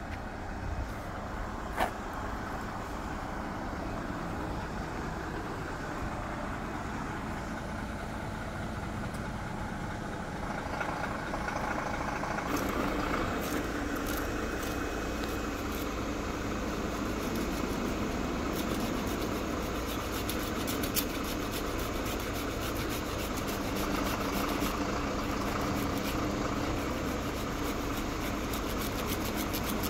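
Diesel engine of a truck-mounted Unic crane running steadily, growing louder about twelve seconds in, with a single sharp click about two seconds in.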